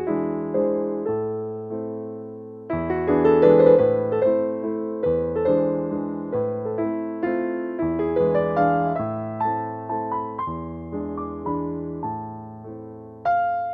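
Background piano music: struck notes and chords that fade away, with a new phrase starting about every two and a half seconds.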